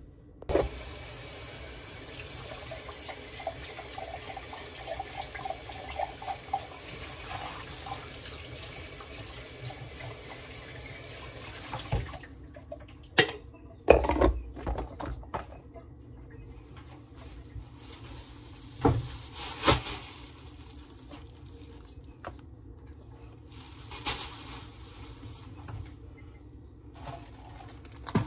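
Water running steadily for about twelve seconds, then stopping suddenly, followed by a few scattered knocks and clatters.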